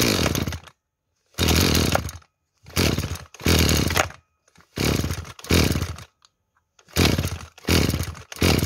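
Makita 26 cc two-stroke brush cutter being pull-started again and again, about nine short rips of the recoil starter cranking the engine, often in pairs, without it catching. The owner puts the failure down to the carburettor not drawing fuel because the tank has run dry.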